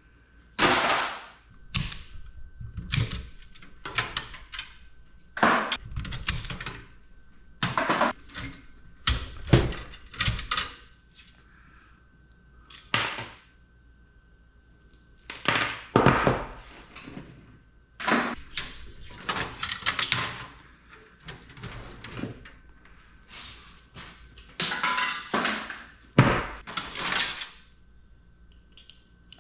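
Irregular clanks, clicks and scrapes of metal parts and hand tools as a desktop computer is taken apart for scrap, some in quick runs, with short pauses between.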